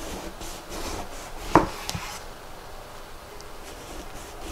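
Chef's knife slicing an eggplant into rounds on a wooden cutting board: the blade rasps through the flesh, with a sharp knock of the blade on the board about one and a half seconds in.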